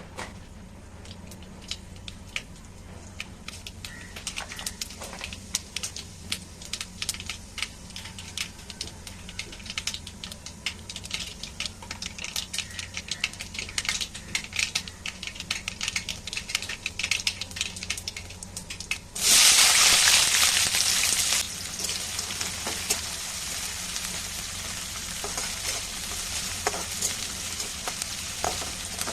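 Hot oil crackling and popping in a pan, the pops growing denser. About two-thirds of the way in, a loud sudden sizzle as food goes into the oil, then steady frying with crackles and some stirring.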